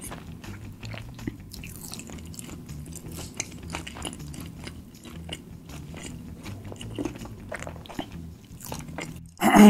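Close-miked chewing of a mouthful of crispy fried chicken burger, with many small crunches and crackles. A brief loud vocal sound comes near the end.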